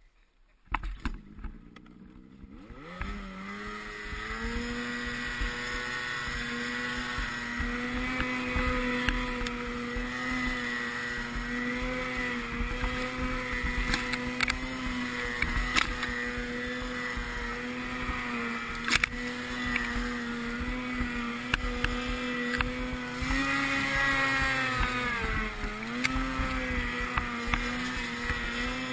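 Ski-Doo snowmobile engine coming up in revs about three seconds in, after a few knocks, then running at steady high revs as the sled plows through deep powder. The revs sag briefly and pick up again near the end.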